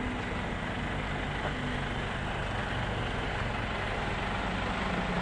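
Large diesel truck engine running with a steady low drone as an expedition truck drives up a gravel desert track.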